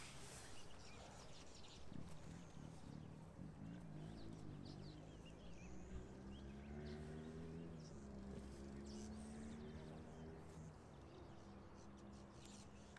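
Faint outdoor ambience with a few distant bird calls and a low, steady drone through the middle.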